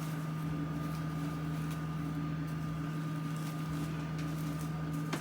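Steady machine hum with a fainter high whine held at one pitch, unchanging throughout.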